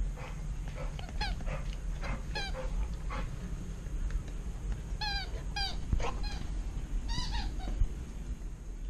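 Alaskan malamute chewing a rubber hedgehog squeaky toy, its squeaker giving a string of short, high squeaks at uneven intervals, some dipping in pitch.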